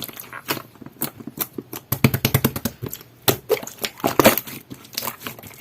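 Jelly-textured slime being squeezed and folded by hand, giving an irregular run of sticky clicks and pops.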